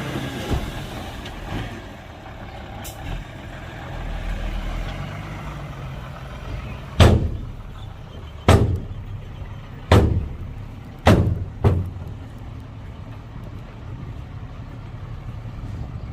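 Heavy diesel machinery running low, with five loud bangs about halfway through, a second or so apart, each ringing briefly.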